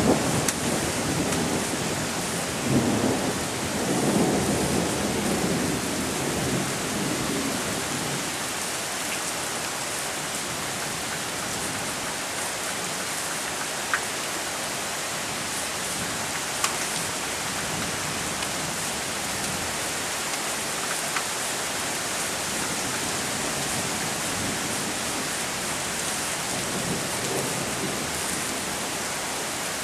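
Thunderstorm: heavy rain falling steadily, with rolling thunder that rumbles through the first several seconds and dies away, and a fainter rumble of thunder near the end. A few sharp ticks stand out over the rain.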